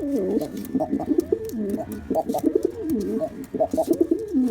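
Male pigeon cooing continuously: a run of low, warbling coos that swoop up and down in pitch, one phrase running into the next.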